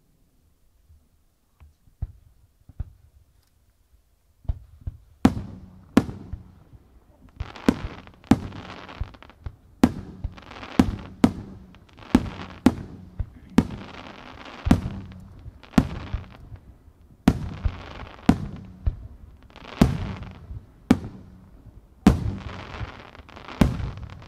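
Japanese aerial firework shells bursting overhead. After a few faint thumps, a rapid run of sharp bangs begins about four seconds in, roughly one a second or faster, and each one trails off in a hissing crackle.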